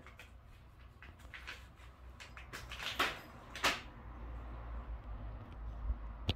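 Plastic cat-food bag rustling and crinkling as a cat pushes its head inside it, with two louder crinkles about three seconds in.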